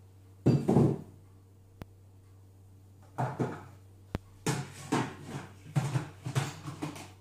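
A ceramic plate set down on a table with a knock just under a second in, then the plastic lid of a Monsieur Cuisine food processor's bowl fitted and locked in place: a run of clunks and clatters in the last few seconds.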